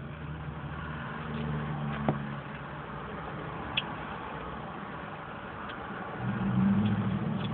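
Motor vehicle engine running close by as a low hum, swelling for the first two seconds and again near the end, with a few faint clicks in between.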